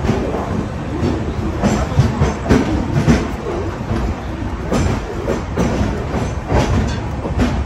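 Moving passenger train with LHB coaches: a steady rumble of the running coach, with irregular clacks and knocks from the wheels over the track.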